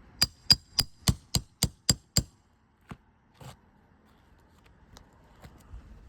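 Roofing hammer striking a metal nail-removal tool eight times in quick, even succession, each blow ringing metallically, then two lighter taps: working the tool under a shingle to get at its nail.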